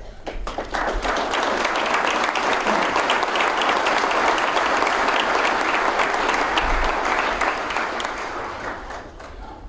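Audience applauding: many people clapping, swelling within the first second, holding steady, then dying away over the last couple of seconds.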